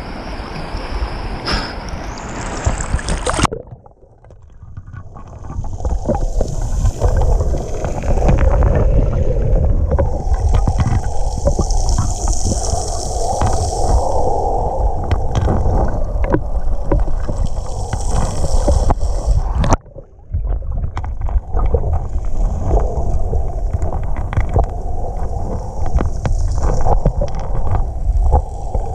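Water sloshing around an action camera in a waterproof housing as it goes under the lake surface a few seconds in. The open-air lapping and wind on the microphone give way to a muffled underwater rumble and gurgling, with scattered small clicks.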